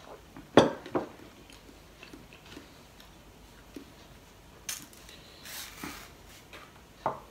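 A metal bowl set down on a wooden table, knocking twice about half a second in. Later come short rustling and tearing sounds as a banana is peeled.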